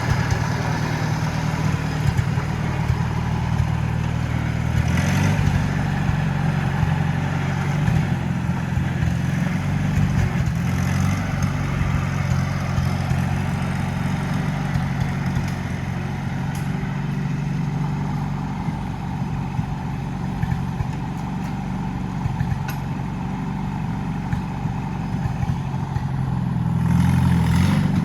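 Farmall Super C tractor's four-cylinder engine running steadily after a rebuild, picking up briefly about five seconds in, again around eleven seconds, and near the end.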